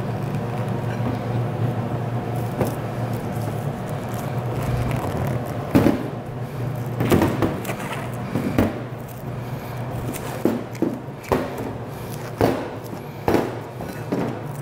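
Plastic cling film crinkling and rustling as dough wrapped in it is pressed and rolled on a stainless steel counter, with about seven short sharp crinkles and knocks from about six seconds in. A steady low hum runs underneath.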